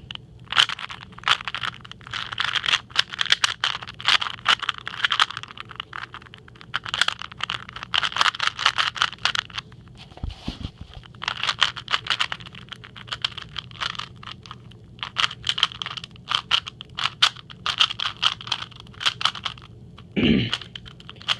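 Rubik's Cube being turned by hand, its plastic layers clicking and rattling in quick bursts of turns with short pauses between; the cube has just been oiled with hair clipper oil.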